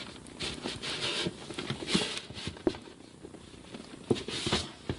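Cardboard box being opened by hand: flaps and packing scraping and rustling in short bursts, with scattered taps and knocks.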